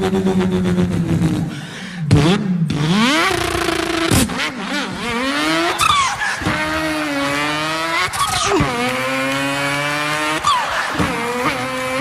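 A man imitating a racing car engine with his voice: the pitch drops, then climbs in repeated rising sweeps that break off and start again, like a car accelerating up through the gears. There is a sharp click about four seconds in.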